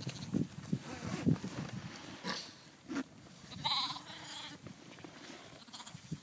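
A sheep bleats once, a short wavering bleat a little after halfway, as the flock crowds in to feed. Soft low knocks and rustles come before it.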